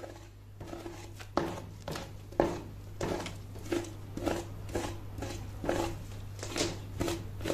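A knife scoring the fat cap of a raw lamb rib rack on a wooden cutting board: about ten short slicing strokes, roughly one every 0.7 seconds, over a steady low hum.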